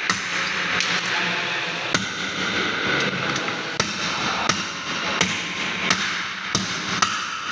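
Sharp metal clicks and knocks, about eight at irregular spacing, as pliers grip and work a damaged wheel nut on a steel wheel rim, over a steady hiss.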